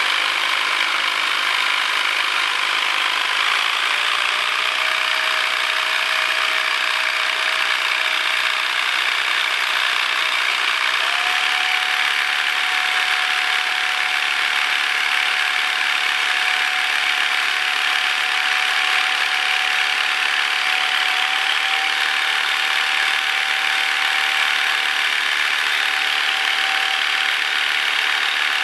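Handheld percussion massage gun running steadily with a loud, even motor buzz. A faint whine in it steps up in pitch about eleven seconds in.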